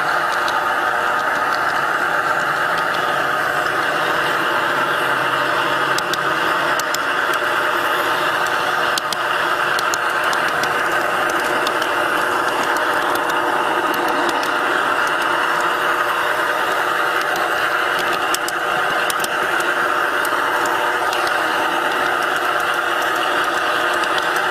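G-scale model train running along garden railroad track, heard from a camera riding on it: a steady whine of the locomotive's electric motor and gears with wheel noise on the rails, and scattered sharp clicks.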